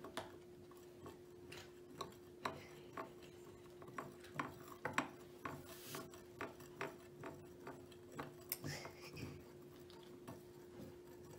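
Thin stirrer clicking and scraping against a small ceramic bowl while bubble solution and food colouring are stirred, in irregular light clicks, over a faint steady hum.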